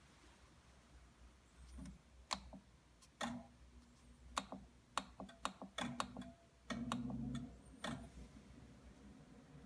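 A run of about a dozen sharp, irregular clicks and taps, with a few short low hums in among them, over a faint steady background.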